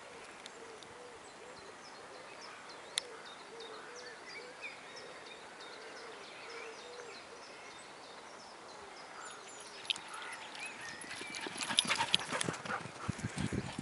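A dog gallops up close over grass, its paws making a quick run of loud thuds on the turf near the end. Faint chirps sound in the background before that.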